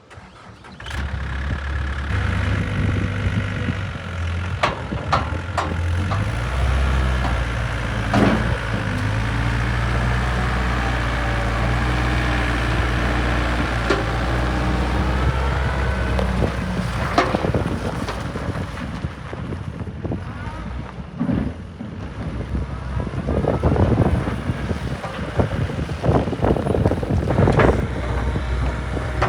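Diesel engine of a Yanmar B55W-2 wheeled excavator coming in about a second in and running steadily, its engine speed shifting a few times, with occasional sharp knocks or clanks.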